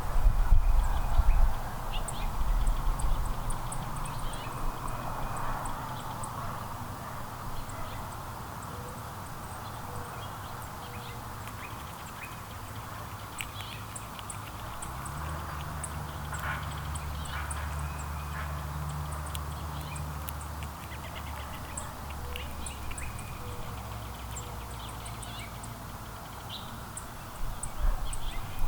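Small backyard songbirds giving short, high chirps and chips over a low outdoor rumble. A steady low hum runs for several seconds in the middle.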